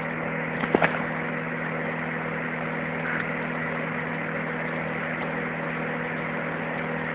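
Electric fan heater running steadily: an even whir of blown air over a constant low motor hum, with a couple of faint clicks about a second in.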